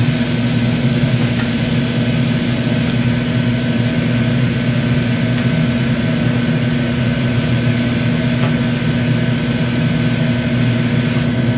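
Surface-mix gas-oxygen glassblowing hand torch burning steadily, a constant low rumble with a hiss above it, as its flame heats the end of a glass tube.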